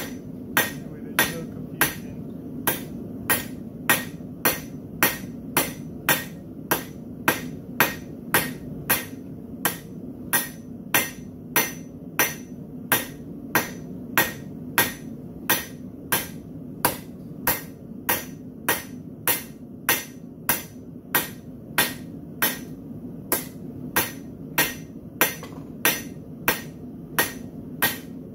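Hand hammer striking a red-hot steel bar on an anvil in a steady rhythm, about three blows every two seconds, over a steady low hum.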